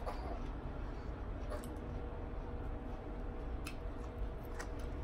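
Close-miked eating of rotisserie chicken and salad: chewing, with a few light clicks scattered through, over a steady low hum.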